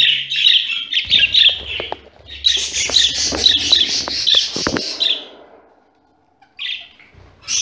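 Budgerigars chattering in quick runs of high chirps, in two stretches about half a second apart, with a few sharp clicks among the second; near the end it falls almost quiet, broken by one short chirp.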